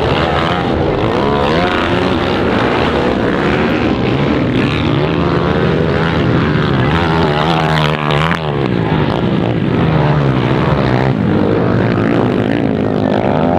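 Several motocross dirt bikes racing, their engines revving up and falling back in overlapping rising and falling pitches. About eight seconds in, the sound dips briefly as an engine drops off the throttle, then picks up again.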